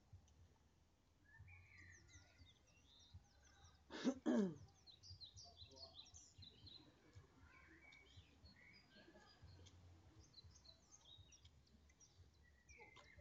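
Faint chirping of small birds, scattered short calls throughout. About four seconds in comes one short, loud vocal sound in two quick parts, falling steeply in pitch.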